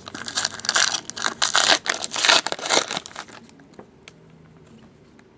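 Foil trading-card pack wrappers crinkling and tearing as packs are opened and handled, busy for about three seconds and then dying down to faint rustling.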